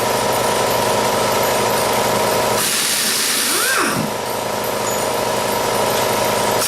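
A pneumatic air tool runs briefly about two and a half seconds in, with a hiss of air and a whine that rises and then falls as it spins up and winds down. Under it is a steady mechanical hum.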